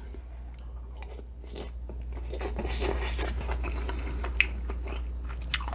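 Close-miked chewing of pinakbet, a pork and vegetable stew, with soft wet mouth sounds and a couple of sharp clicks. A steady low hum runs underneath.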